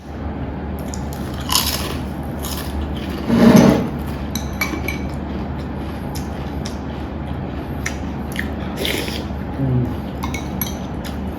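Cutlery clinking against a plate during a meal, with scattered light clicks and one louder clatter about three and a half seconds in, over a steady low hum.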